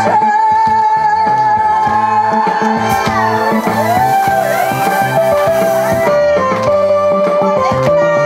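Korean trot music played loud through a PA, with a woman singing gliding, held notes. From about three seconds in to about six seconds in, a stage fog machine hisses over it, then cuts off.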